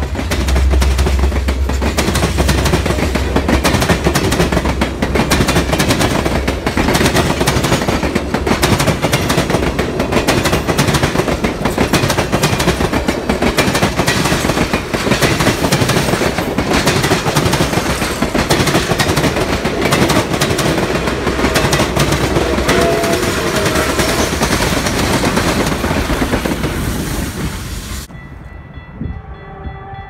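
Passenger train cars rolling past close by: a loud, steady rumble of wheels on rail with constant clattering over joints. Near the end the sound changes to a distant locomotive's multi-chime horn held as a steady chord.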